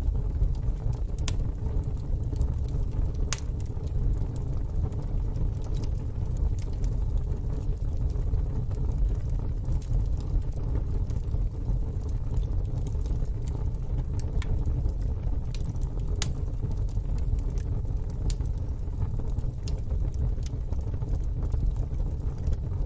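Wood fire burning in a fire pit: a steady low rumble with scattered sharp crackles and pops every few seconds.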